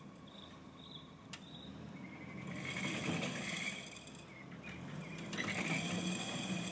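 1944 M29C Weasel tracked carrier climbing onto a trailer: its Studebaker six-cylinder engine runs low and steady under two louder spells of high-pitched squealing and clatter from the steel tracks, starting about two and a half and five and a half seconds in.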